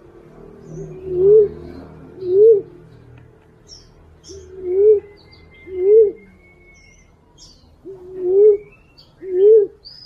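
Female fruit dove (walik) call, played as a hunting lure to draw in males. Low coos come in three pairs, each coo rising and then falling in pitch, with faint high chirps above.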